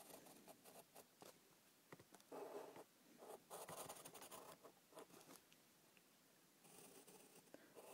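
Faint scratching of a drawing tool on paper: a few short strokes separated by pauses, with small clicks between them.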